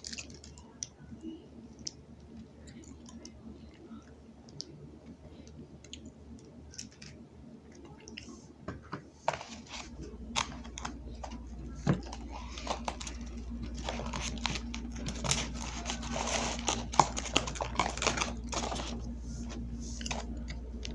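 Scattered clicks, taps and crinkles of hands handling fast-food packaging, sparse at first and busier in the second half. A low steady hum comes in about halfway through.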